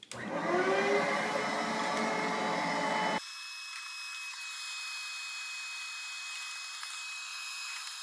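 Vacuum cleaner switched on with a click, its motor spinning up with a rising whine and then running steadily as the hose cleans the dust out of the air purifier's fan housing. About three seconds in, the sound turns abruptly thinner and higher-pitched.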